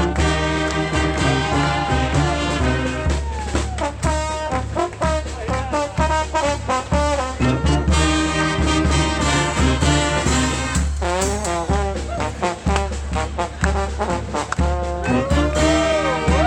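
Street brass band playing loudly, with trombones and trumpets over steady drumming. Near the end a horn line slides up and down in pitch.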